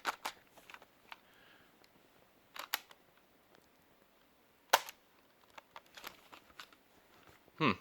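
Sharp mechanical clicks of the keys on a Panasonic RQ352 portable cassette recorder being pressed, with no motor or tape sound following: the recorder is not responding. There is a quick pair of clicks a little under three seconds in and a louder single click near the five-second mark.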